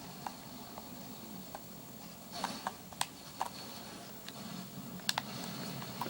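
Quiet room tone with a faint steady high whine and a scattered handful of small sharp clicks and taps.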